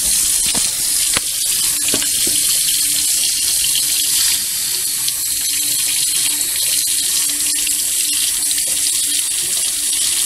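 Kitchen faucet running steadily into a stainless-steel sink, the stream splashing on the metal basin.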